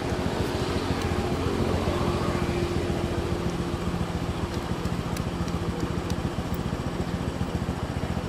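An engine idling steadily, with an even, fast low pulse and a hum.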